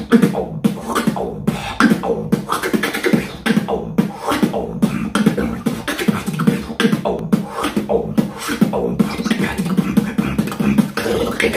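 Beatboxing into a microphone: a fast, unbroken rhythm of sharp mouth-made drum hits over a low buzzing bass tone.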